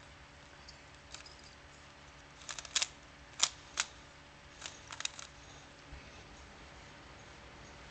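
A plastic 3x3 Rubik's Cube being turned during a solve: sharp clicks and clacks of its layers turning, in quick scattered clusters for a few seconds in the middle.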